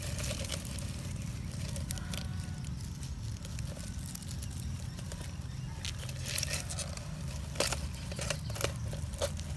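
A plastic bottle crinkling and dry grass and twigs rustling and snapping as the bottle is pressed down over a tarantula, in scattered crackles that come mostly in the second half, over a steady low rumble.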